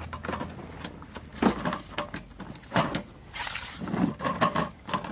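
Toro Recycler push lawn mower being pulled back and handled on its plastic wheels and deck, giving several separate knocks, rattles and scrapes.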